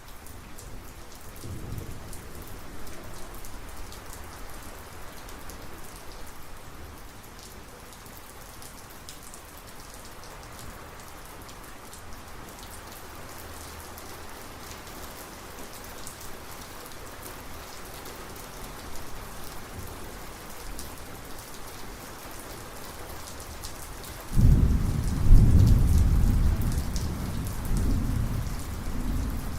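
Steady rain falling, with a faint low rumble of thunder about a second and a half in. About 24 seconds in a loud, close clap of thunder breaks suddenly and rolls on in several deep swells.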